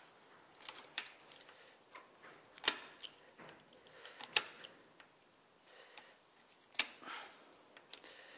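Sharp metallic clicks of circlip pliers and a circlip being spread on a gearbox shaft: three loud snaps a couple of seconds apart, with lighter ticks and taps between.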